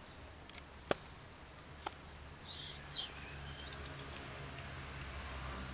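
A few high-pitched chirps early on, then a short warbling high call a little past the middle, over a steady low background hum. Two sharp clicks come about a second and two seconds in.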